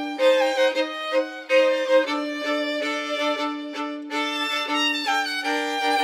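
Violin music playing a Bulgarian folk tune: a melody moving above a steady held drone note.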